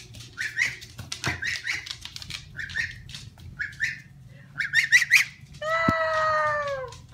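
Embden gosling peeping: short, high peeps in quick runs of two to five. There is a single knock about a second in. Near the end, a longer cry of about a second and a half, falling slightly in pitch, sounds over the peeps.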